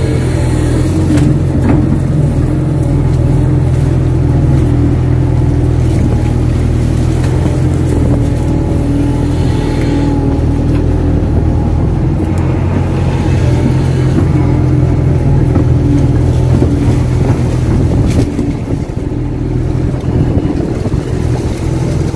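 Kato crawler excavator's diesel engine running steadily under working load as the arm and bucket move soil, heard from the operator's cab. The engine eases off a little near the end.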